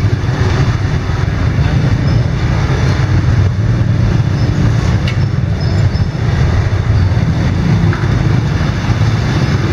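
Several small motorbikes running together at low speed in a narrow walled alley, a steady low engine rumble.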